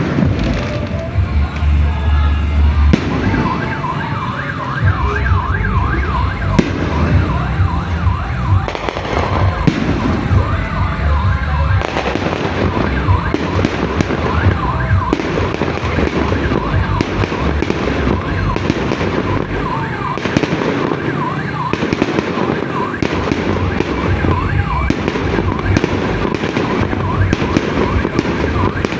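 Aerial fireworks display going off continuously: a dense run of bangs and crackles over low booms, with many short wavering whistles from whistling pyrotechnics.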